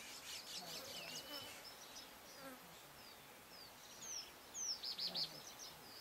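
Masked weavers chattering: many short, high chirps and trills, with a louder run of quick descending notes near the end.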